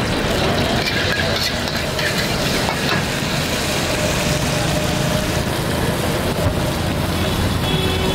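Steady street noise with a rumble of passing traffic.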